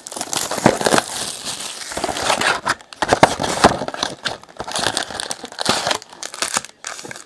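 Trading card pack wrappers being torn open and crinkled, with cards being handled: irregular crackling and rustling with a few short pauses.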